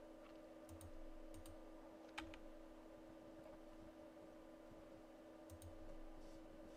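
Faint, scattered clicks of a computer keyboard and mouse, about five in all, over a steady low hum; otherwise near silence.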